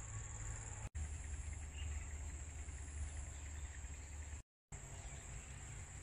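Insects chirring as one steady high drone over a low rumble, the whole sound cutting out for an instant twice.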